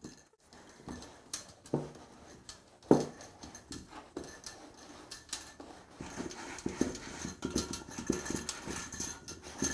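Moistened rice flour being rubbed by hand through a metal sieve set on a stainless steel bowl, for a second sifting after more water was added: a few knocks against the metal early on, the loudest about three seconds in, then quicker, denser scraping strokes of the hands over the mesh from about halfway through.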